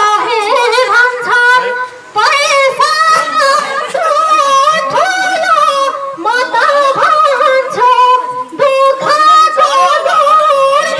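A woman singing in a high voice: long held notes with a wavering pitch, stepping and gliding between notes, broken by brief pauses for breath.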